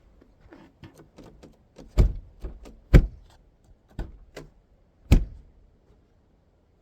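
Clicks and four sharp knocks about a second apart, with softer knocks between them, from the tractor's cab door and its newly replaced plastic door handle being worked.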